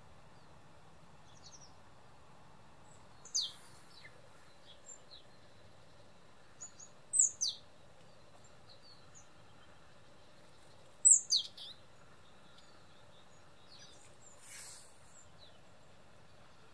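European robin giving sharp, very short tick calls: one about three seconds in, then quick pairs about seven and eleven seconds in, with faint small-bird chirps in between. A soft rustle comes near the end.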